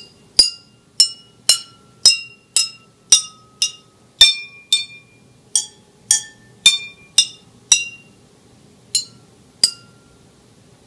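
Water-filled drinking glasses tapped one after another, each tap a short ringing clink whose pitch changes from glass to glass. About sixteen taps, roughly two a second, then two slower ones, stopping shortly before the end.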